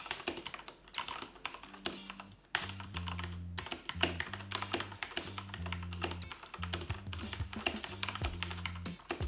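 Fast typing on an ASUS ROG Strix Scope TKL Deluxe mechanical keyboard with MX Red linear switches: a rapid run of key clacks. Background music with a bass line comes in about two seconds in.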